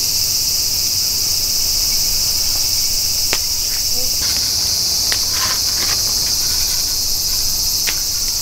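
Steady high-pitched buzz of a summer insect chorus, with a few faint light clicks scattered through it.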